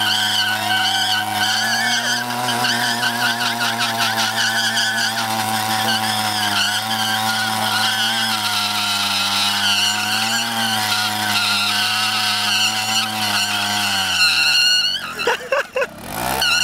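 Yamaha minibike engine held at high revs while its rear tyre spins against a wooden plank in a burnout. The note stays steady for most of the time, then the revs fall away sharply near the end and pick up again.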